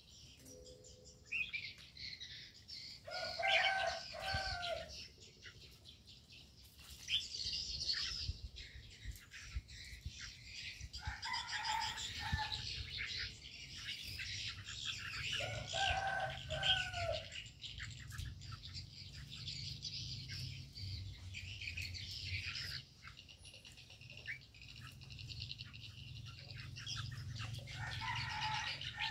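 Many small birds chirping and twittering almost continuously in an aviary, with a lower, drawn-out call of about a second and a half rising above them four times.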